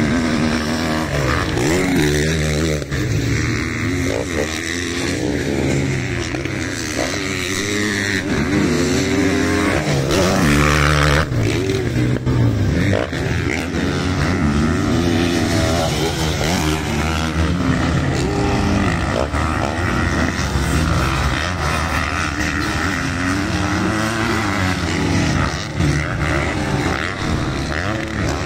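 Motocross dirt bike engines revving hard and dropping off over and over as riders work around the track, the pitch rising and falling with each throttle change.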